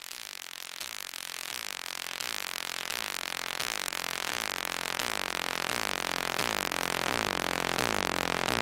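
Electronic music build-up: a dense synth sound swelling steadily louder, with falling pitch sweeps repeating over and over.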